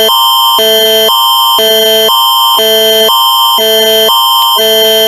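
Canadian Alerting Attention Signal (the Alert Ready tone): a loud electronic alarm that switches between two chords about every half second over a steady high tone. It marks the start of an emergency broadcast message.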